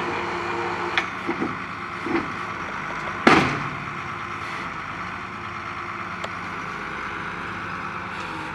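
Truck-mounted borewell drilling rig running with a steady engine drone, with a few knocks early and one loud sharp bang about three seconds in.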